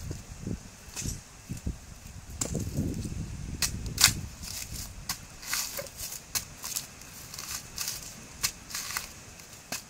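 Coconut husk being torn off on a husking stake: irregular sharp cracks and snaps as the fibrous husk splits away from the nut, the loudest about four seconds in.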